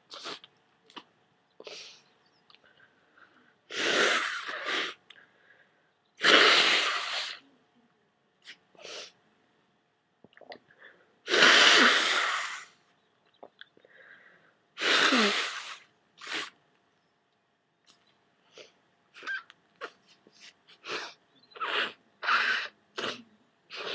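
A person with a head cold sneezing wet, messy sneezes: four big sneezes several seconds apart. They are followed near the end by a run of short sniffs and breaths.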